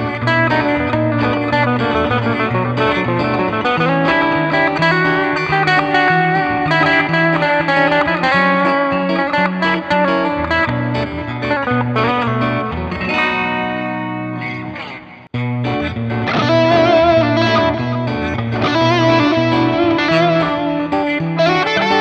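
Bacchus BJM-1R Jazzmaster-style electric guitar played through a Nux MG-30 multi-effects modeler, a continuous run of picked notes and chords with effects. A held note fades about fifteen seconds in and the playing breaks off briefly, then picks up again.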